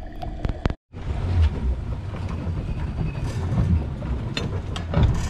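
Faint underwater sound with a few sharp clicks, broken off by a moment of silence under a second in. Then a loud, uneven low rumble of wind and water around a small boat on open sea, with occasional clicks and knocks.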